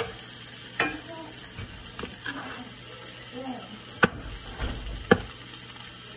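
Sausage sizzling as it browns in a cast-iron skillet, with a knock under a second in and two sharp cracks about four and five seconds in, the second the loudest: an egg being cracked against the paper-towel-covered counter.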